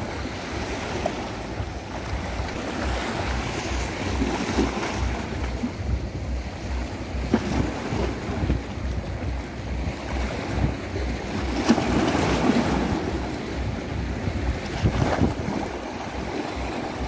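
Sea waves washing, with wind buffeting the microphone in a steady low rumble.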